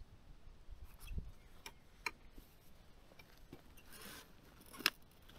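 Faint, scattered clicks and rustling of gear being strapped onto a cargo e-bike's rear rack, with a sharper click just before the end.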